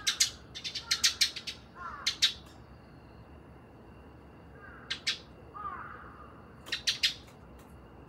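Eurasian tree sparrows chirping in short, sharp bursts: a quick run of chirps in the first couple of seconds, more around five seconds in, and a tight cluster near seven seconds.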